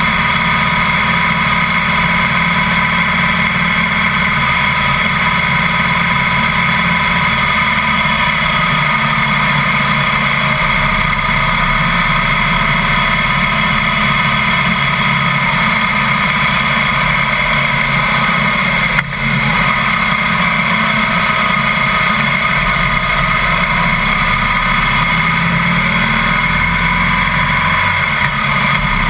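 Harley-Davidson Heritage Softail's V-twin engine running at a steady cruise, mixed with road and wind noise, picked up by a camera mounted low beside the front wheel. One brief click partway through.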